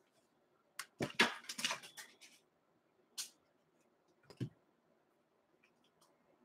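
Quiet room with a short patter of light clicks and rustles about a second in, then a single sharp tick and, a little later, one soft low knock.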